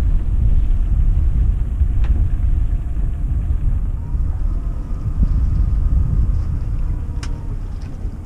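Wind buffeting the microphone: a loud, uneven low rumble that eases a little toward the end. Two faint clicks, about two seconds in and near the end.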